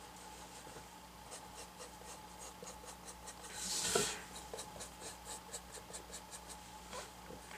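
Paintbrush stroking and dabbing paint onto a painted board: a run of short, soft scratchy strokes, with one louder, longer scrape about four seconds in.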